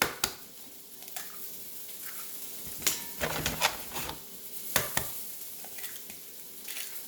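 Eggs being cracked against a mixing bowl and emptied in: a few sharp knocks and small clatters, over the faint steady sizzle of sausage links frying.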